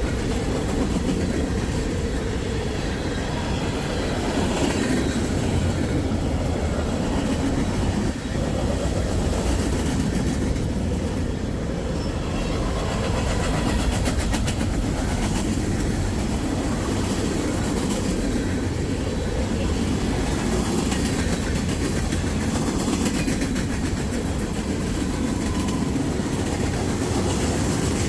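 Freight train cars rolling past at steady speed: a continuous heavy rumble of steel wheels on the rails, with rapid clicking and clacking from the wheels over the rail joints.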